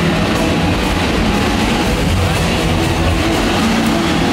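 Stunt motorcycle engines running, mixed with loud rock music from the show's speakers.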